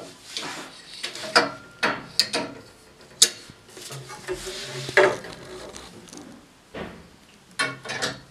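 Black metal frame parts of an IKEA FREDDE desk being fitted together by hand, a crossbar being slotted into the side frame of the upper shelf. The parts give a series of irregular sharp metallic clinks and knocks, the loudest about 3 and 5 seconds in.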